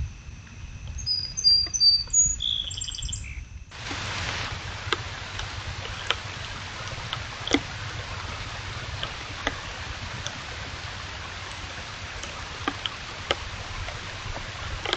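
Small birds chirping in short high notes for the first few seconds. Then an abrupt change to a steady hiss with scattered sharp ticks.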